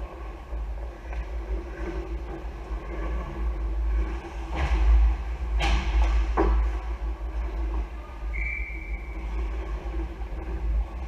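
Ice hockey rink ambience: a steady low rumble under a background din, with three sharp cracks close together about halfway through and a short high tone near the end.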